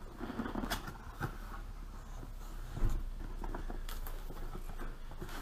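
Cardboard box being opened by hand: the lid and flaps are lifted and folded back, with light rustling of card and a few soft taps and scrapes, the most distinct one a little under halfway through.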